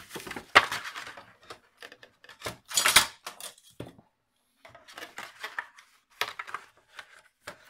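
Paper envelope rustling and crackling as it is lifted and turned over by hand, with clattering as a metal ruler is picked up and laid across it. The sound comes in uneven bursts, loudest about half a second in and around three seconds in.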